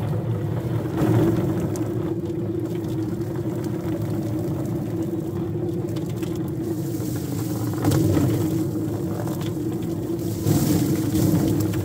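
A steady, unbroken mechanical drone with a constant low hum, like a motor or engine running.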